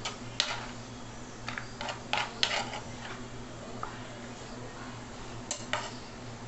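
Kitchen knife clicking and tapping on a plastic cutting board as chopped green pepper is gathered up and dropped into a steel pot: a few scattered clicks, the loudest cluster about two seconds in and another near the end, over a steady low hum.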